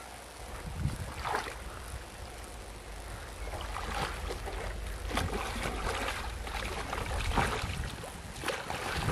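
A hooked catfish splashing and thrashing at the surface of a small pond in several short irregular bursts, over a steady low rumble of wind on the microphone.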